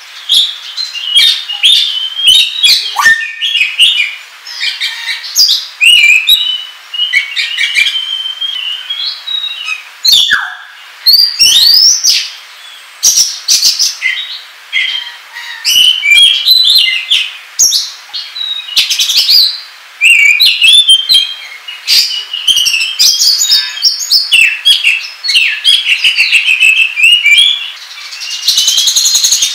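Oriental magpie-robin singing loudly and without pause, a fast, varied run of whistles, slurred sweeps and chattering notes with a rapid buzzy trill near the end. This is the energetic 'ngobra' song used as a lure recording to provoke other magpie-robins.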